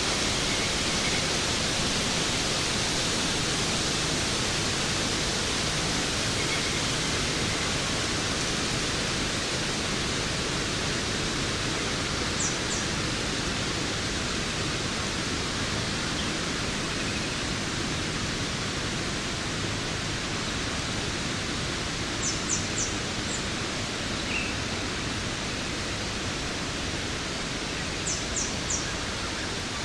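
Waterfall: a steady rush of falling water. Three brief groups of quick high chirps break through it, about twelve, twenty-two and twenty-eight seconds in.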